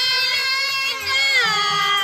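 Swahili qaswida: a long, ornamented sung melody that holds notes and glides between them, with keyboard accompaniment over a low, steady beat.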